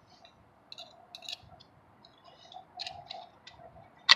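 Faint scattered clicks and rustles of hands working a tire plug insertion tool and a sticky rubber plug strip, trying to thread the strip through the needle's eye. A sudden louder clatter comes at the very end.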